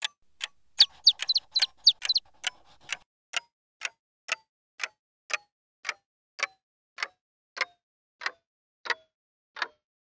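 A ticking sound effect: sharp, separate ticks, a quick uneven cluster in the first two seconds, then evenly spaced ticks that slow gradually from about two a second to under one and a half a second.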